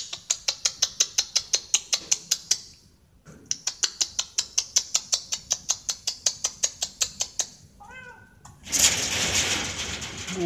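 Two runs of rapid, even clicking, about seven a second. Near the end a short cat meow, then a loud scraping rattle as cats scramble up a metal window grille.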